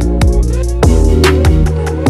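Background electronic music: a steady beat with deep bass, gliding kick thumps and sustained synth chords.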